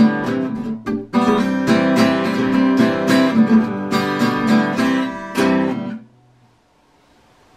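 Acoustic guitar strumming the closing chords of a song, with a brief break about a second in. The playing stops about six seconds in, leaving quiet room tone.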